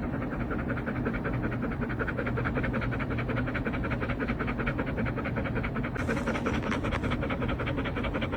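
A dog panting rapidly in a fast, steady rhythm.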